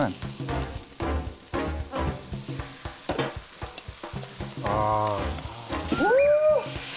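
Marinated webfoot octopus sizzling as it is stir-fried with onion and green onion in a hot pan, a wooden spatula scraping and turning it in short strokes. About six seconds in, a short, loud pitched sound rises and then holds.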